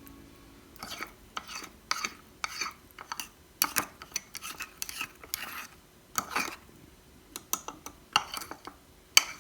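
A spoon stirring cake batter in a mug, with irregular scrapes and clinks against the mug's sides, about one or two strokes a second.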